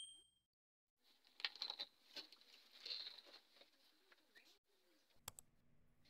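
Faint cooing of domestic fancy pigeons in a loft, with soft rustling.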